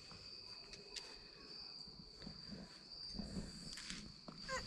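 Faint, steady high-pitched trilling of crickets in an evening insect chorus.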